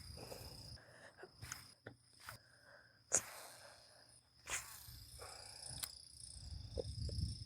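Crickets trilling faintly in a steady high tone, with a few soft clicks.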